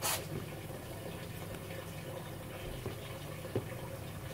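Steady background hiss and low hum, with a short scratchy rustle at the very start and two faint clicks near the end.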